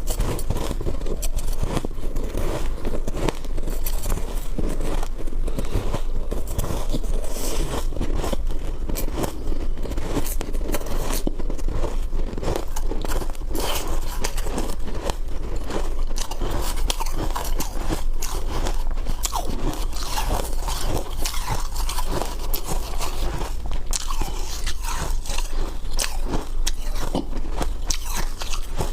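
Close-miked biting and crunching of ice, a continuous run of crisp, irregular crunches and chewing, over a steady low hum.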